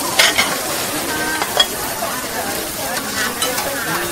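Food frying in a hot pan, a steady sizzle, stirred with a metal utensil that clinks against the pan a few times.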